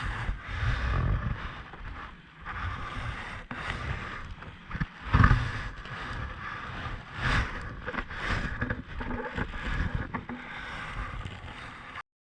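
Water lapping and sloshing against a stand-up paddleboard, with uneven gusts of wind on the microphone and occasional knocks; the sound cuts off abruptly near the end.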